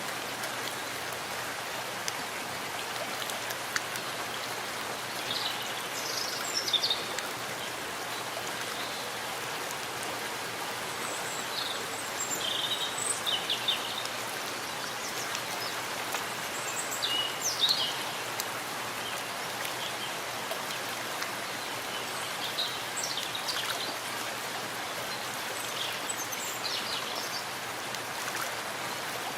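Steady rain falling in a forest, an even hiss of drops. Short high chirps stand out above it a few times.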